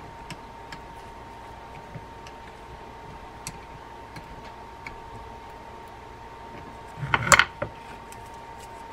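Light scattered clicks of a baitcasting reel's metal parts being worked by hand, then a short clatter about seven seconds in as the reel is set down on a wooden bench.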